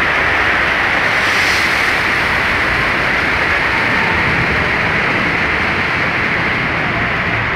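Earthquake simulation set: a loud, steady rushing noise, with a short hiss about a second and a half in.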